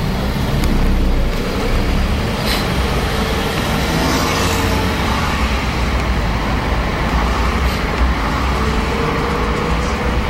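Steady engine and road noise of a moving car heard from inside the cabin, a continuous low rumble with a faint steady whine.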